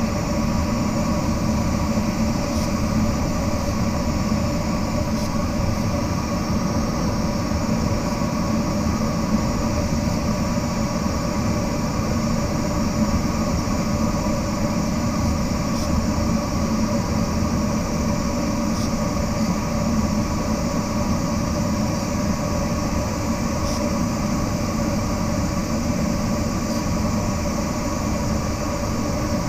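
Steady rushing airflow noise inside a glider cockpit in flight, with a faint steady hum and a few faint ticks every few seconds.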